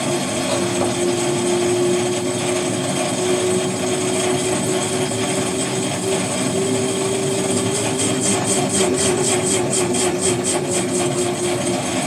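LG WT7800 top-load washer in its final spin, the stainless basket and impeller turning fast under a steady motor whine. Near the end a rapid pulsing hiss joins in, about four pulses a second.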